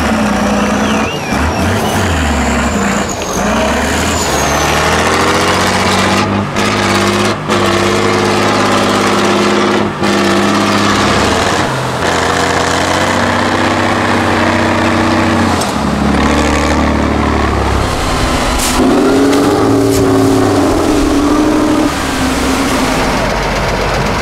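Off-road truck's diesel engine working hard under throttle. Its pitch rises and falls and holds steady at several levels, with a few abrupt breaks.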